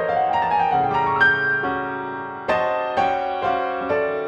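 Piano playing a soft tune: a rising run of single notes in the first second or so, then chords struck about every half second, each left to ring and fade.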